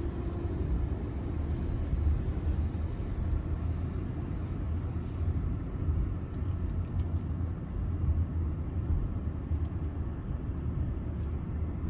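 Low, steady rumble of a car's engine and tyres heard from inside the cabin as it drives slowly, with a few faint clicks in the second half.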